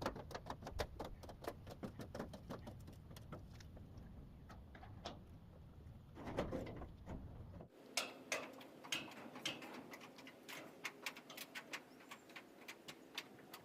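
Faint, irregular clicks and ticks, several a second, over a low rumble that cuts off abruptly about halfway through.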